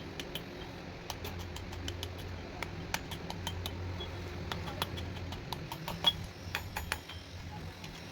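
Irregular small clicks and light metallic taps of hand work in a blacksmith's shop, one sharper click about six seconds in, over a steady low hum.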